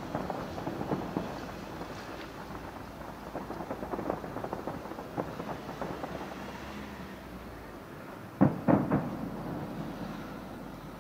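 Aerial fireworks display: a dense crackle of many small pops that thins out over several seconds. Then three loud shell bursts in quick succession about three-quarters of the way through, trailing off afterwards.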